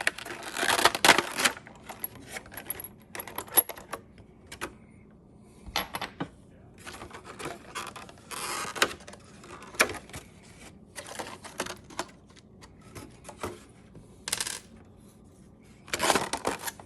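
Small metal gun parts clicking and clinking as they are handled on a workbench, with short bursts of rustling packaging in between.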